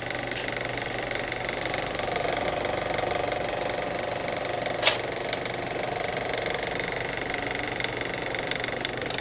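A steady, dense mechanical buzzing drone with a low hum underneath, broken by one sharp crack about five seconds in.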